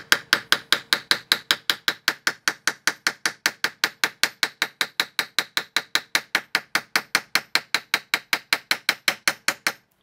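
A hammer tapping lightly and rapidly on the top of a solid brass padlock, about five or six metallic taps a second in an even run that stops just before the end. The tapping is meant to reveal the sealed pin chambers in the lock body.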